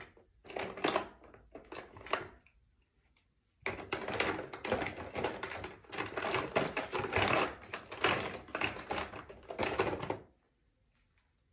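Rapid clicking and clattering of plastic makeup containers being rummaged through and handled. It pauses for about a second early on, then runs densely and stops shortly before the end.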